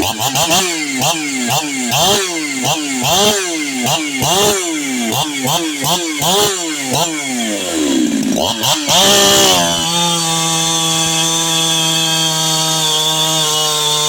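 Ported Jonsered 2171 two-stroke chainsaw cutting hickory. Its engine pitch swings rapidly up and down, about one and a half times a second, for the first eight seconds and sags about eight seconds in. It then holds a steady high pitch for the last four seconds.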